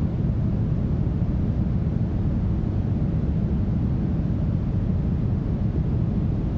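Steady, smoothed brown noise: a deep, even hiss weighted heavily toward the low end, with no changes or events.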